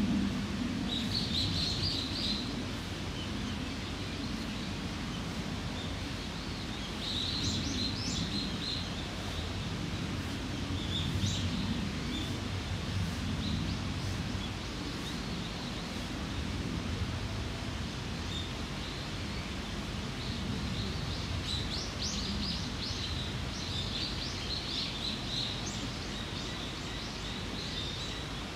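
Steady low background noise with small birds chirping in short clusters: about a second in, around seven to eight seconds, and many more over the last third.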